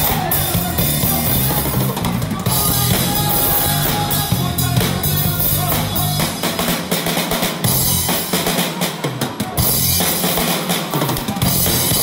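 Live band playing an R&B groove, led by a drum kit with kick drum, snare and cymbals. From about halfway, the low bass line drops out for several seconds, leaving mostly the drums, then comes back near the end.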